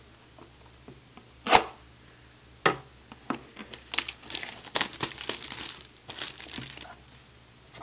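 A cardboard trading-card blaster box being opened by hand: a sharp knock about a second and a half in, another a second later, then crinkling and tearing for about four seconds as the box is pulled open.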